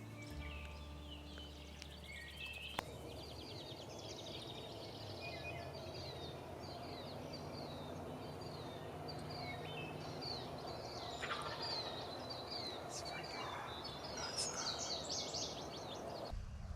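Wild turkey gobbling, its rattling calls loudest and densest near the end, with one sharp click about three seconds in.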